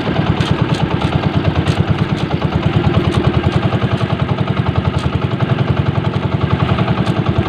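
Small engine running steadily, with a rapid, even chugging pulse.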